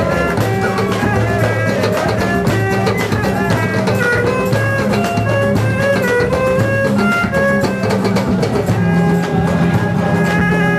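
Loud, steady music with drums and a melody line that bends up and down over a low repeating accompaniment.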